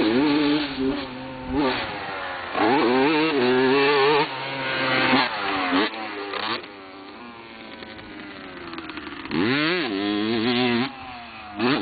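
Kawasaki KX125 125cc two-stroke single-cylinder motocross engine revving hard and easing off in repeated rises and falls of pitch as the bike is ridden over dirt-track jumps. It is quieter through the middle as the bike gets farther off, then loud again from about nine seconds in.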